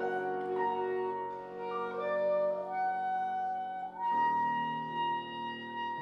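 Clarinet playing with piano accompaniment: the clarinet climbs through a few notes, then holds a long note from about four seconds in, as the piano strikes a new chord beneath it.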